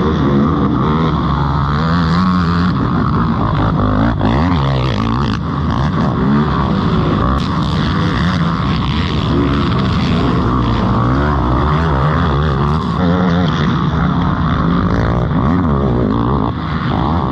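Race quads, Yamaha YFZ450Rs with single-cylinder four-stroke engines, revving up and down over and over as they ride the motocross track.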